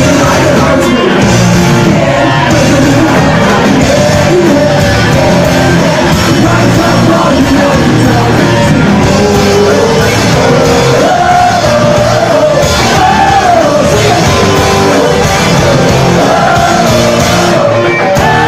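Live pop-punk band playing loud through a club PA, with a lead vocal singing and shouting over the band.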